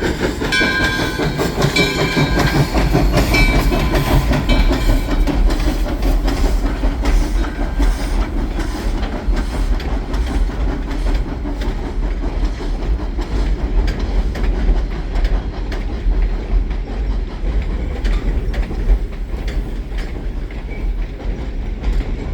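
Railroad train rolling on the track: a steady deep rumble with wheels clicking over the rail joints. Several high steady tones ring over the first few seconds, then fade.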